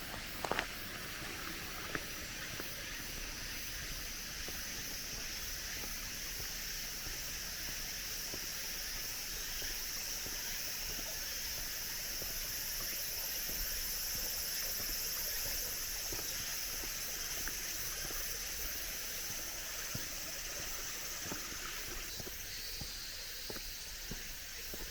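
A chorus of cicadas, a steady high-pitched shrilling that swells and eases, with a second, pulsing cicada call joining near the end. Footsteps crunch on a gravel forest road, a few sharper steps near the start.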